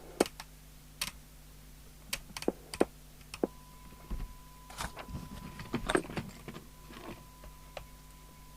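Sharp, irregular clicks of switches and knobs being worked on a CB radio and its bench test gear while the set's transmit power is checked on other channels, over a low steady mains hum. About three and a half seconds in, a steady pure tone starts and holds.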